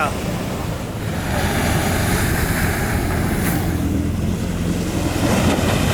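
Boat engine running steadily, a low hum under wind noise on the microphone.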